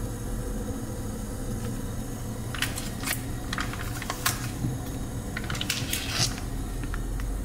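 Water heating in a small stainless saucepan on a gas burner: a steady low rumble, with a scatter of short sharp clicks and ticks in the middle.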